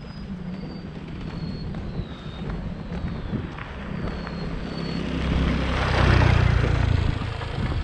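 A vehicle engine running on the move, with wind noise; the sound swells louder about five to seven seconds in.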